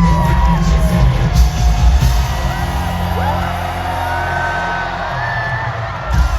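Live pop concert music from an arena sound system, heard from among the crowd, with fans screaming and whooping over it. The heavy bass thins out in the second half and comes back right at the end.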